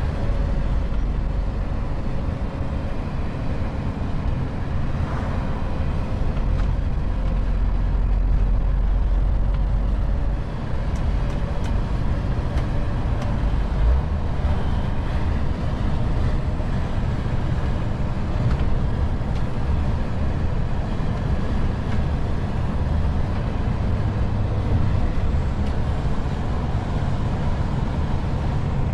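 MAN TGX 440 truck's inline-six diesel engine running steadily under way, with tyre and road noise, heard from inside the cab. A low rumble dominates, with a brief dip in level about ten seconds in and a single short knock a few seconds later.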